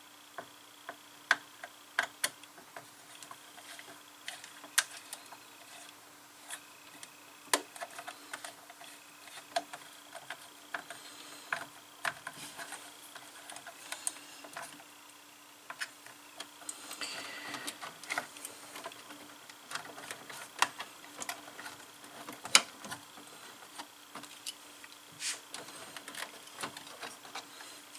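Irregular clicks and taps of a small screwdriver and wire against the plastic screw terminals of a C25XP CNC control board as the probe input wire is fastened, over a faint steady hum.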